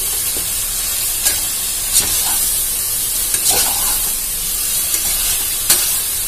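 Goat head meat being stirred with a metal ladle in a hot pressure cooker: a steady sizzle, with scattered clicks and scrapes of the ladle against the pot.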